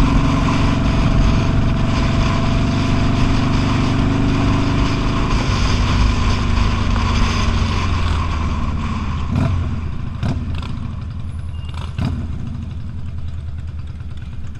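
V-twin cruiser motorcycle engine running under way, then dropping in pitch and easing off as the bike slows, with a few sharp clicks in the second half.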